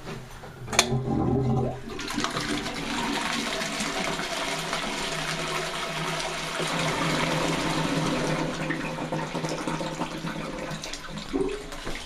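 The push button of a concealed cistern clicks, and a Cesame wall-hung toilet bowl flushes. A first gush is followed by a steady rush of water into the bowl for about ten seconds, tapering off near the end.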